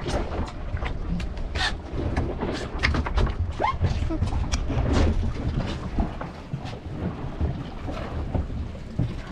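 Wind rumbling on the microphone aboard a boat at sea, with many irregular knocks and clicks of a fish being handled on the deck.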